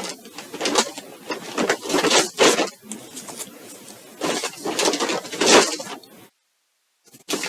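Packaging rustling and crinkling in irregular bursts as yarn is handled during unboxing, cutting to dead silence for about a second near the end.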